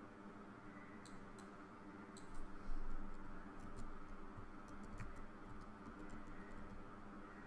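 Computer mouse button clicks, a dozen or so sharp, light clicks at uneven intervals, over a steady low electrical hum, with a brief low bump about two and a half seconds in.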